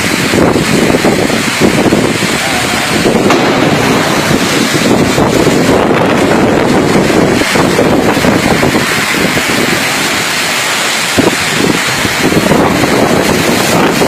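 Storm wind and rain: a loud, continuous rushing noise with wind gusting and buffeting the microphone.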